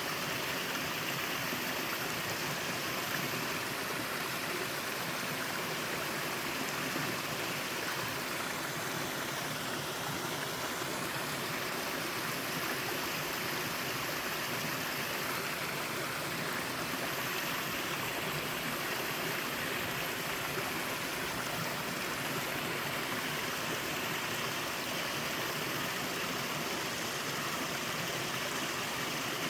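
Small waterfall in a mountain valley stream, pouring steadily: an even, unbroken rush of falling and splashing water.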